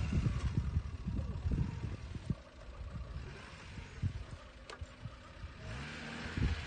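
Suzuki Jimny's engine running at low revs as the 4x4 crawls along a muddy ditch bank, with a few knocks from the chassis. The revs rise briefly near the end.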